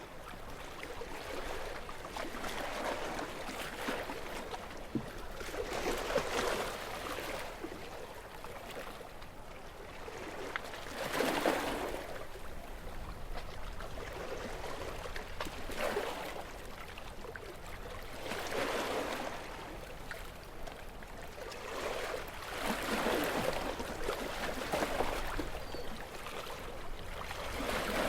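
Calm sea: small waves washing onto the shore, the surf swelling and falling away every few seconds.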